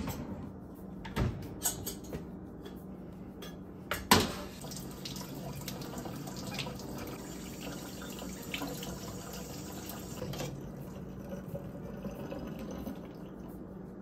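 Kitchen tap running into a stainless steel sink while something is rinsed by hand, with a few knocks and clinks of dishes before it, the loudest a sharp knock about four seconds in. The water stops about ten seconds in, and a steady low hum runs underneath.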